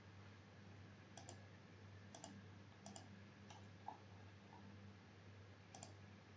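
Faint computer mouse clicks, several scattered through, over a low steady hum.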